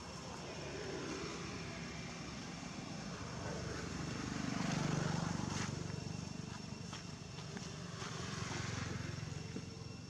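A motor vehicle going past, its noise building to the loudest point about five seconds in and fading away, then a second, fainter pass near the end.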